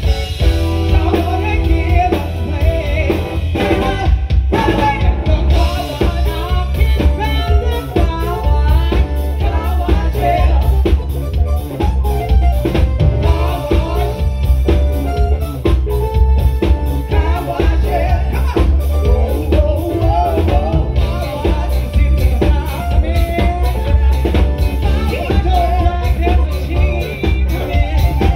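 Live band with a woman singing lead into a microphone over electric guitar, keyboard and drum kit, amplified through a PA. A steady beat, with a heavy, booming low end.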